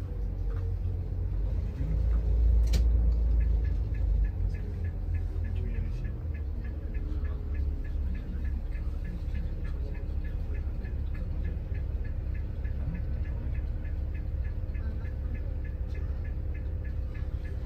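Inside a moving shuttle bus: a steady low engine and road rumble, heaviest in the first few seconds. A single sharp click comes near three seconds in, followed by a faint, even ticking a few times a second.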